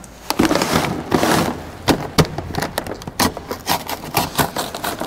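Paper bag of charcoal briquettes being handled on a steel grill grate: the paper crinkling and rustling, with the briquettes inside shifting and knocking against the grate in many sharp clicks.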